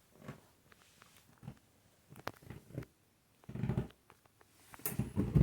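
Candy front-loading washing machine tumbling a full load in its main wash: soft, irregular swishes and pats of wet laundry and water in the turning drum, with short quiet gaps between them.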